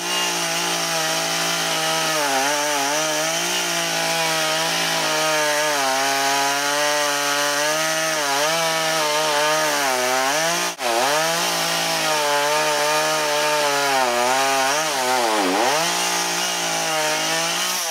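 Gasoline chainsaw running at high revs while cutting a tree limb. The engine note holds steady but drops sharply and recovers about eleven seconds in, and dips again near the end as the chain loads up in the wood.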